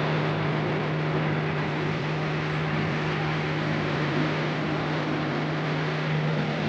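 A steady machine drone: a constant low hum over an even hiss, unchanging throughout.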